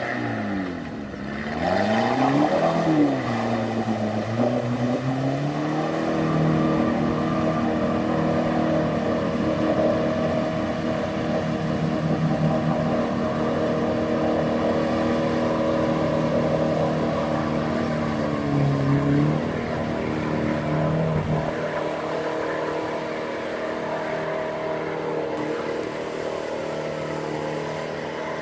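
Off-road 4x4's engine revving up and down a few times, then held at steady high revs for a long stretch before dropping back about three quarters of the way through, as the vehicle fights its way through a hard section of the trail.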